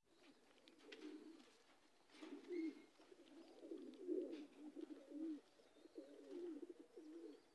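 Domestic high-flyer pigeons cooing faintly, one low wavering coo after another.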